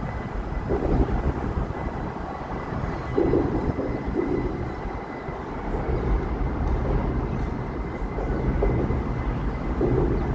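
Steady low rumble of a train running nearby, with a faint steady high whine throughout.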